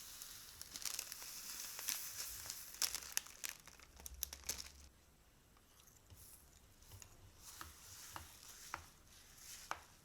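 Crunchy slime being squeezed and pressed, crackling densely for the first half, then giving sparser, quieter pops.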